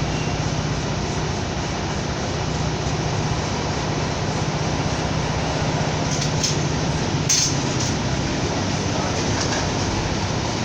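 Steady low rumbling background noise with a hum under it, and a few sharp clicks about six to seven and a half seconds in.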